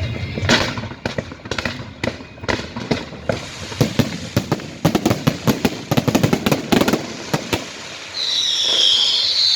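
Fireworks going off: a fast, irregular string of sharp firecracker bangs that grows denser, then thins out. Near the end a loud, high, warbling whistle starts.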